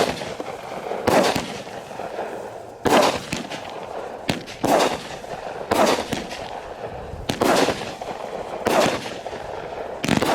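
Mini consumer firework cake going off, with a loud sharp report about every second and a half and steady crackling between the shots.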